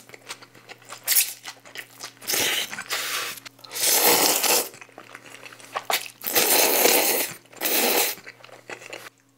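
Loud slurping of japchae glass noodles drawn in through the lips, in about five pulls, the longer ones about a second each, with short pauses between.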